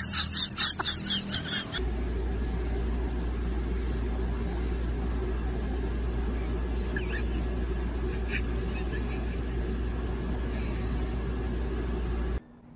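Domestic cat purring, a steady, even low rumble that runs unbroken for about ten seconds and stops abruptly near the end. A short patch of other, broken sounds comes before it in the first two seconds.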